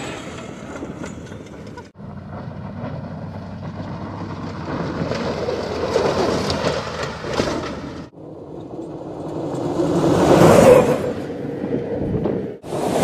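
Electric off-road race car driving, a noisy rumble with no clear motor tone that swells and fades. It breaks off abruptly twice, and is loudest in a surge about ten seconds in.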